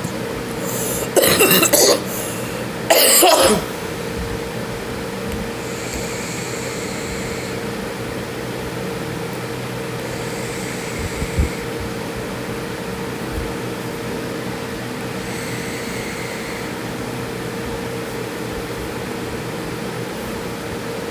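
A person coughing twice, hard, about a second apart, the harsh coughs of someone who has just inhaled vapour from a vape. After them a steady hum carries on, with faint short hisses every few seconds.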